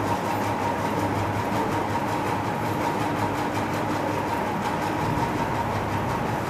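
Steady mechanical hum over a constant background noise, unchanging throughout, with a faint steady tone in it.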